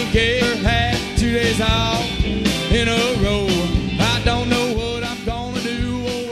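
Background music: a song with a singing voice over a band with a steady beat.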